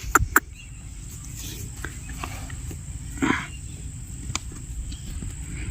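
Cattle in a pen: a short breathy snort about three seconds in, with a few sharp clicks near the start. A faint steady high insect trill runs underneath.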